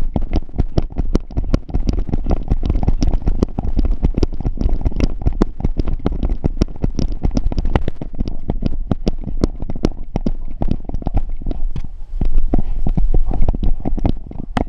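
Harness-mounted GoPro jolting and thumping on a running golden retriever's back, with rapid irregular knocks from each bounding stride over a steady low rumble. The knocking grows louder for a second or so near the end.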